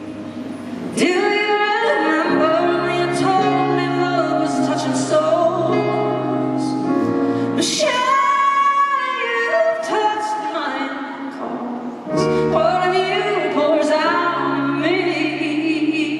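A female vocalist sings a slow ballad live, holding long, sliding notes over sustained low instrumental accompaniment.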